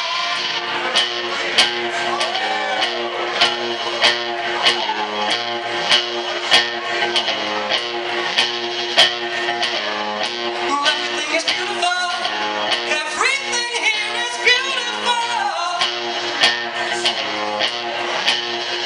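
Live rock band playing: electric guitar and bass guitar over drums, with a voice singing.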